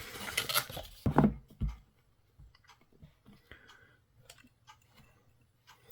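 Hands handling a boxed pocket knife and its papers: a brief rustle, two soft thumps, then a few faint, scattered clicks.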